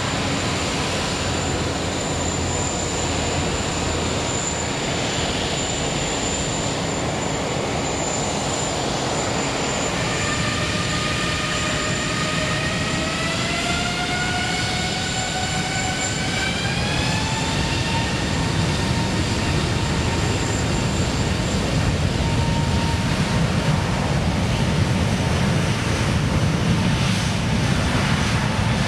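Airbus A380's four Rolls-Royce Trent 900 turbofan engines running: a steady jet noise, then from about a third of the way in a whine that rises in pitch for several seconds as the engines spool up. The low rumble grows louder toward the end as thrust builds for takeoff.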